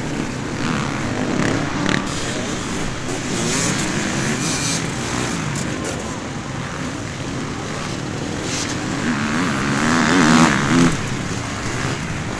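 Several enduro dirt bike engines revving as the bikes ride past one after another on a dirt track. The loudest bike passes close about ten seconds in, its pitch rising and falling.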